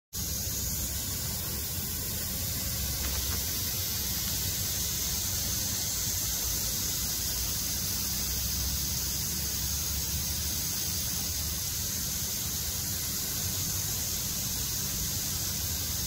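Steady, even hiss, strongest high up, over a low rumble.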